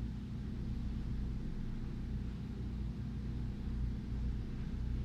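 Steady low rumble of a running engine, even and unbroken, with its sound sitting almost wholly in the low range.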